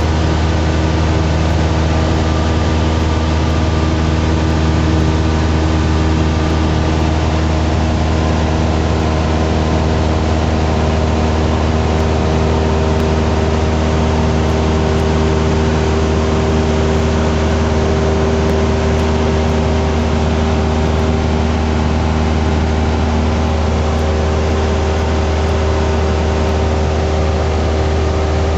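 Light aircraft's piston engine and propeller droning steadily inside the cockpit, holding an even note in cruise flight.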